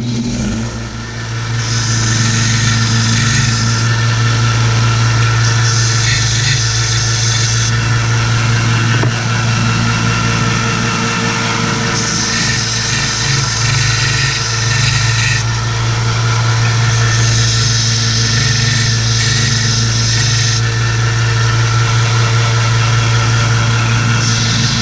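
Mastercraft bench grinder running with a steady motor hum while the ends of threaded steel rod are ground to take off burrs. The grinding hiss comes and goes in about five passes of a few seconds each as each rod end is pressed to the wheel.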